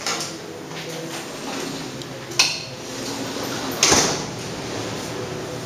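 Two sharp knocks over a faint steady background: a short click about two and a half seconds in, then a louder knock with a brief scraping rustle about four seconds in.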